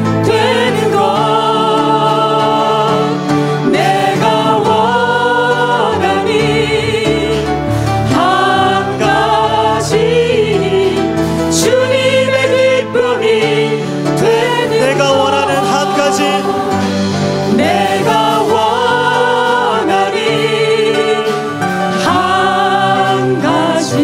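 Church praise team of mixed men's and women's voices singing a slow worship song together through microphones, with held notes, over a steady sustained accompaniment.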